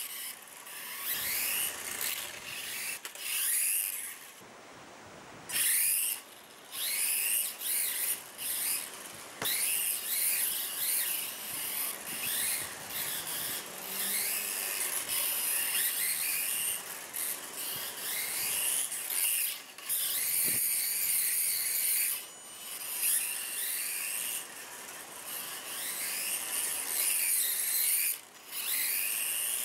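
Micro RC car driving on a concrete floor: its electric motor whines, rising and falling in pitch as the throttle is blipped again and again, over a hiss of small tyres scrubbing the concrete, with a few short lulls when it coasts or stops.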